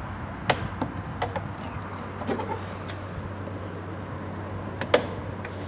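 Plastic retaining clips of a Fiat Cronos door trim panel popping loose as the panel is pried off: a handful of sharp clicks, the loudest about five seconds in, over a steady hum.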